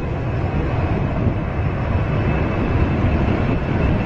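Boeing 747's four jet engines at takeoff thrust as it rolls toward the microphone: a steady low rumble with a faint high whine over it, growing slightly louder near the end.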